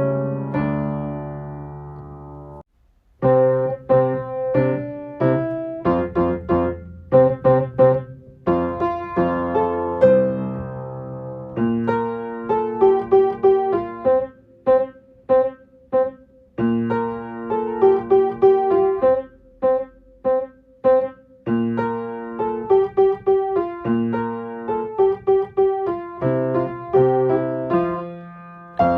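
Piano playing a simple children's-song accompaniment, a melody over single bass notes, with a short break about three seconds in and a stretch of short repeated notes around the middle.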